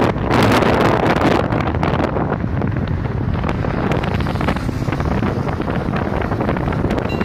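Wind buffeting the microphone of a phone carried in a moving vehicle, over steady road and traffic noise; the buffeting is heaviest for the first two seconds.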